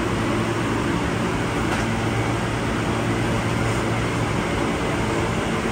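Steady hum inside an Alstom R160A subway car standing still in a tunnel: the car's air-conditioning and onboard equipment running, with a few steady low tones under an even noise.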